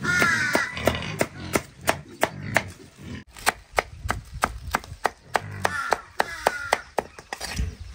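A knife chopping on a cutting board in a steady rhythm, about three strokes a second. An animal calls briefly near the start and again about six seconds in.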